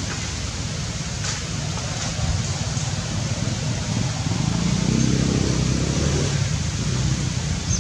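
Steady outdoor noise with the low hum of a passing motor vehicle, which grows louder about five seconds in and then fades.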